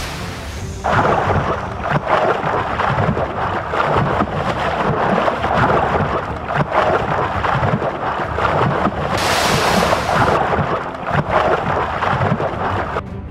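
Water splashing and churning, a continuous rough rush with two louder, brighter splashes, one at the very start and one about nine seconds in.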